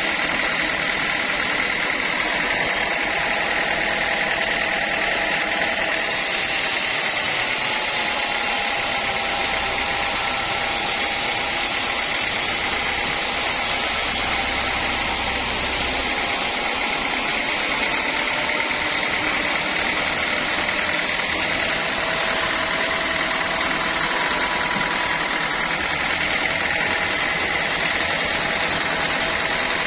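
Sawmill saw running steadily on teak logs, a loud machine drone with a high whine. An extra high hiss comes in about six seconds in and drops away about seventeen seconds in.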